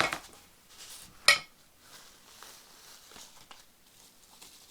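Handling and opening a mailing package of fingerboard parts: a sharp click at the start and a louder short knock about a second in, with faint small clinks and rustles between.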